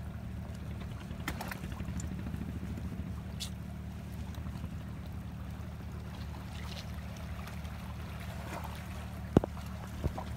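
A steady low motor hum with water trickling among rocks. A sharp knock comes about nine seconds in, and another near the end.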